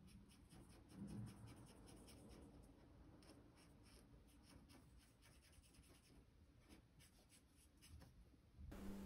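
Faint scratching of a black Copic Multiliner brush pen on paper: quick, repeated back-and-forth strokes as a dark patch is filled in.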